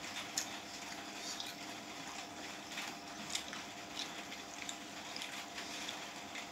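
Fingers squishing and mixing rice with chicken curry on a plate, mixed with wet chewing and mouth clicks. Irregular soft clicks throughout, a few sharper ones about half a second in and just past three seconds.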